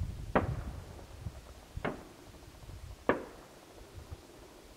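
Distant aerial firework shells bursting: three separate booms about a second and a half apart, each trailing off in a short echo, the last the loudest.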